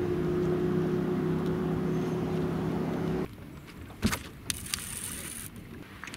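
A steady, low-pitched motor hum that cuts off suddenly about three seconds in. After it come a few short, sharp swishes and clicks with a brief high whir, the sounds of fishing rods being cast.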